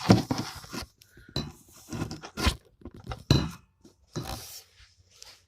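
Crinkling, rustling handling noise with a few light clinks, in irregular bursts, as the new saxophone and its packaging are handled; it stops near the end.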